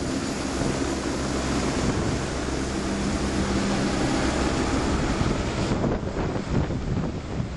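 Red single-rotor light helicopter climbing away: steady rotor and engine noise mixed with wind buffeting on the microphone. It grows duller and a little fainter about six seconds in as it gains distance.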